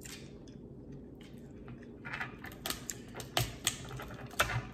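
Crab leg shells crackling and clicking as the legs are handled and pulled apart by hand. It is a quick, uneven run of sharp cracks starting about halfway in, with a few louder snaps near the end.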